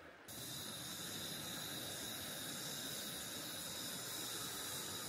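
Steady hiss of gas burning in a canister-top gas lantern with a mesh globe, starting abruptly just after the start and holding even.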